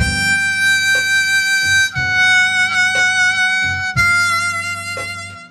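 Diatonic blues harmonica (blues harp) playing three long held notes, starting on the blow 6. Each note lasts about two seconds and each is a little lower than the one before, a stepwise drop over a blues backing track.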